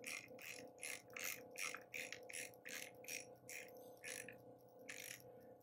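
Homemade spring compressor's threaded rod being turned by hand, giving short scraping strokes about three to four a second that stop about four seconds in, with one more near the end. Under them runs the steady hum of a shop heat pump.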